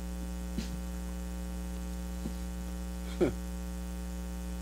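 Steady electrical mains hum picked up by the microphone and sound system, a low buzz with many overtones. A brief falling vocal sound is heard about three seconds in.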